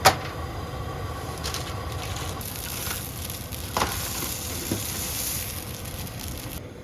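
Grilled cheese sandwiches sizzling in a frying pan, with a sharp knock right at the start and a couple of lighter clicks later.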